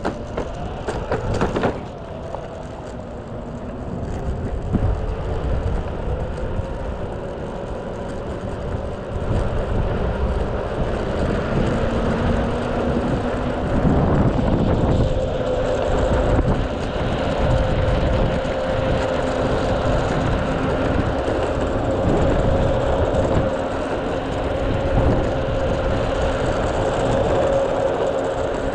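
Belt-drive electric skateboard motor of a Mototec 600 W board whining, its pitch rising slowly as the board picks up speed and then holding steady, over the rumble of the wheels rolling on rough, cracked asphalt. A few clatters about a second in.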